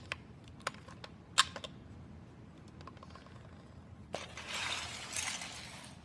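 Plastic Lego pieces clicking and tapping a few times as a part is fitted, the sharpest click about a second and a half in, followed by about two seconds of scratchy rustling near the end.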